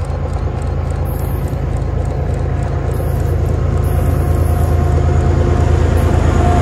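Head-end lash-up of four GE diesel-electric freight locomotives rumbling steadily and growing louder as the train approaches.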